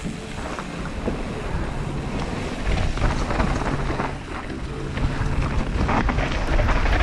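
Wind rushing over a helmet-mounted action camera's microphone on a fast downhill mountain bike run, mixed with the rattle of the bike and its tyres over the dirt trail. It gets louder over the last few seconds.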